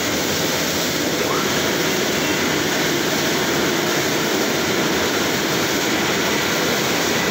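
Automatic tunnel car wash running: a steady, loud rush of water jets spraying onto a car and streaming off it, with the constant noise of the wash machinery.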